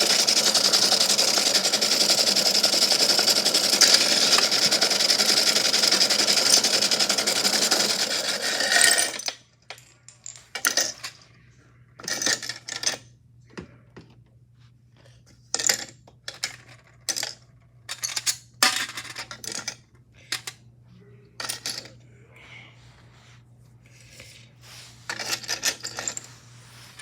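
A small machine runs with hard objects rattling and churning inside, then cuts off suddenly about nine seconds in. Scattered clinks and rattles of hard objects such as shells and stones follow.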